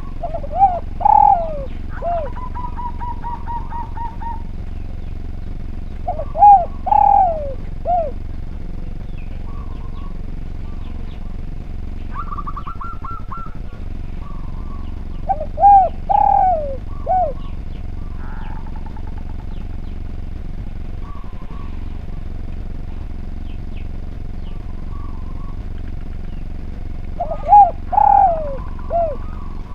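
Spotted dove (derkuku) cooing: four phrases of three or four notes, each about two seconds long, spaced roughly eight to eleven seconds apart. Faint chirps and short trills from other small birds fall between the phrases, over a steady low hum.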